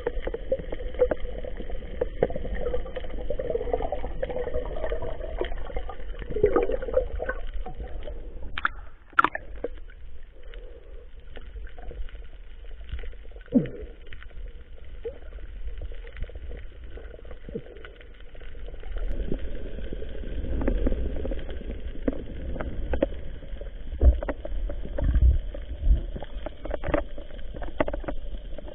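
Muffled underwater noise heard through an action camera's waterproof housing: a steady low rumble with scattered knocks and clicks, a few of them sharper near the middle and the end.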